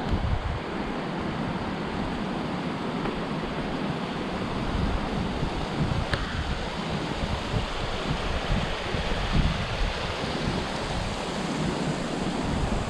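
Wind buffeting the microphone, a steady rushing noise with gusty low rumbles.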